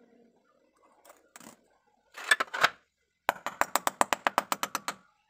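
A few sharp knocks, then a quick, even run of about fourteen sharp metallic taps, roughly eight a second, at the truck's front wheel hub as the grease cap is tapped into place.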